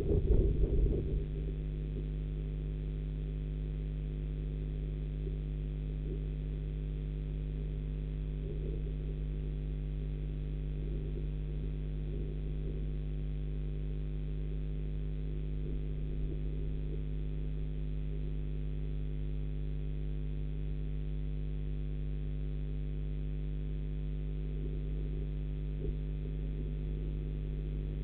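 Steady electrical hum made of several fixed low tones, with a brief louder rumble in the first second.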